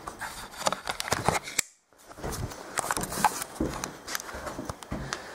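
Irregular crunching steps in snow mixed with handling noise on the camera, a string of short sharp clicks, with a brief break to silence about a second and a half in.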